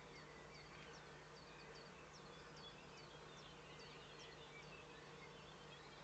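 Faint birdsong at dawn: many short, high chirps and trills from several small birds overlapping, over a steady low electrical hum.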